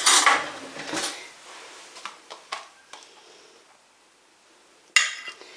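Serving utensil scraping and clinking against a plate as food is dished out. A scrape at the start, a knock about a second in and a few light taps between two and three seconds, then a short sharp scrape near the end.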